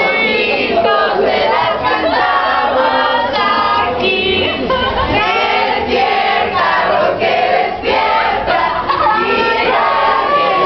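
A group of teenagers singing and shouting together, many voices overlapping loudly.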